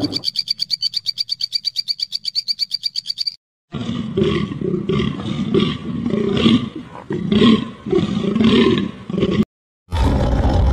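A sequence of animal calls: first a fast, even high pulsing of about ten pulses a second for over three seconds, then, after a brief dead gap, a deer stag's rough calls repeating about once a second, cut off by another gap before a loud low rumbling starts near the end.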